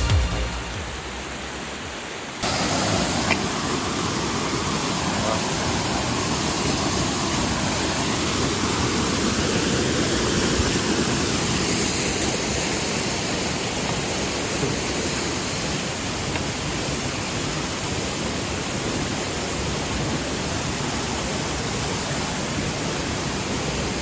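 Waterfall's water falling and splashing in a steady rushing roar; it gets louder suddenly about two seconds in and then holds even.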